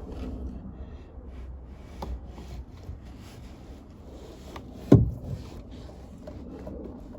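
Handling noises of work on a vehicle: a few light knocks and rubs, then one loud hard thump about five seconds in, over a low steady rumble.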